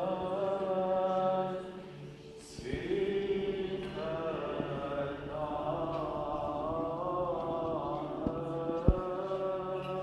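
Orthodox liturgical chanting: a sung melody over a steady low held drone, pausing briefly about two seconds in before resuming. A single sharp knock sounds near the end.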